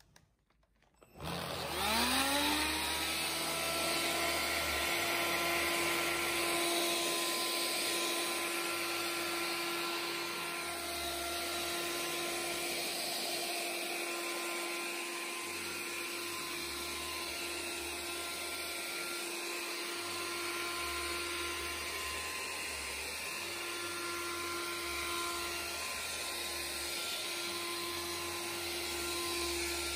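Electrolux Ergorapido cordless vacuum with its bedding nozzle switching on about a second in, its motor whining up to speed and then running steadily as it is moved over a quilt.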